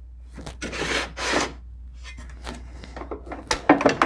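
Wood scraping twice, then a run of clattering knocks, the loudest near the end, as pieces of wood and gear are shifted around on a workbench.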